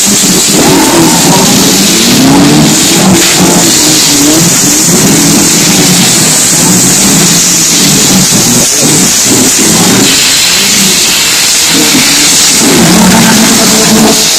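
Several banger-race hatchbacks' engines revving and accelerating together on a dirt track. Their pitches overlap, rising and falling.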